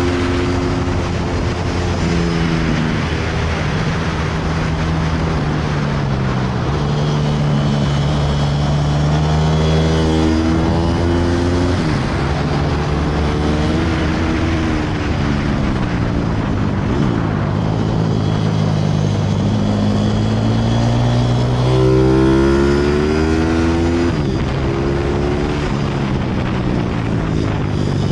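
Pit bike's single-cylinder engine ridden hard around a track. Its pitch climbs through each gear and drops sharply at every shift or when rolling off for a corner, over steady wind noise.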